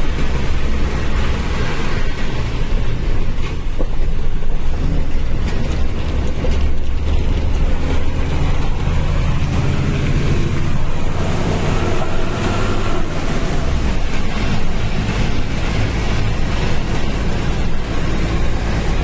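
Inside a moving truck's cab: the engine's steady low drone under road noise, with the cab rattling and clicking.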